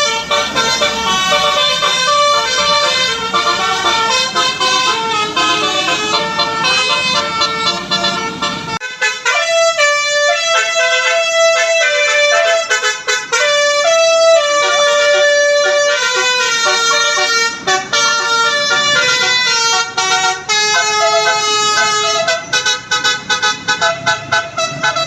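Tour bus telolet musical air horn playing a tune of held notes that step from pitch to pitch. A low rumble runs underneath and stops abruptly about a third of the way in. Near the end the notes come as quick short toots.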